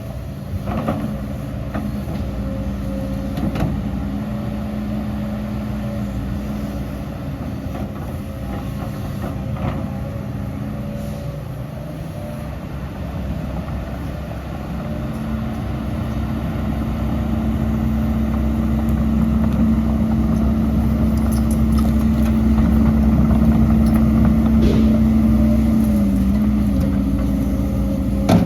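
Heavy diesel earthmoving machinery running steadily with a deep engine hum. It grows louder from about halfway, with a few faint knocks early on.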